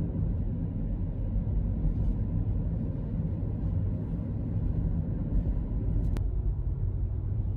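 Steady low rumble of a running vehicle, with a brief click about six seconds in.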